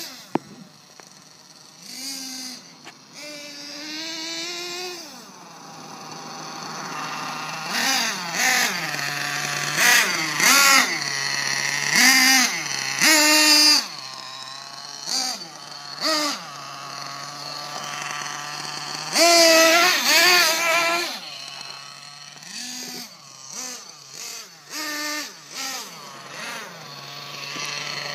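Team Associated MGT 8.0 nitro RC monster truck engine running. It sits at a steady idle between many short, high-pitched revs that rise and fall as the throttle is blipped, with one longer rev about two-thirds of the way through.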